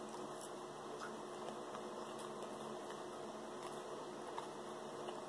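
Quiet eating sounds: a few faint scattered clicks of a plastic fork and chewing, over a steady low hum.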